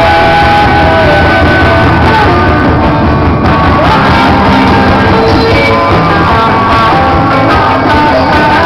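Live rock band playing: electric guitars, bass and drum kit, with a singer's held vocal line over the top.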